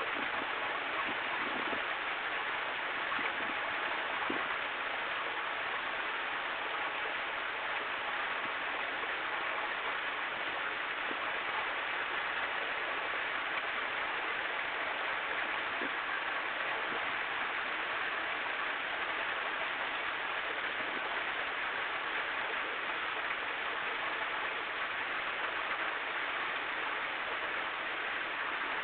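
A steady rushing noise that stays even throughout, with a few faint knocks in the first few seconds.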